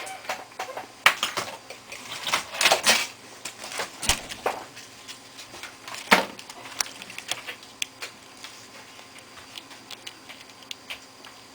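Plastic clicks and knocks of a laptop keyboard being fitted into the chassis, with several sharp knocks in the first half, then lighter scattered ticks.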